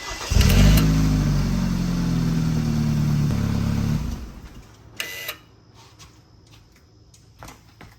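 BMW 3 Series car engine and exhaust running for about three and a half seconds, with no rattle from the exhaust, then stopping. A couple of short clicks follow.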